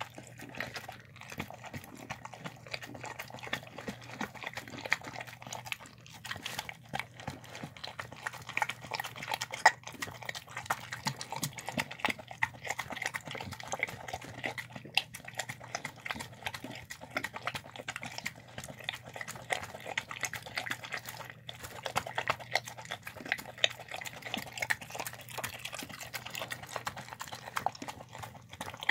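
Dog eating a wet rice, chicken and vegetable mix from a plastic tub: continuous wet smacking and chewing, made of many quick irregular clicks.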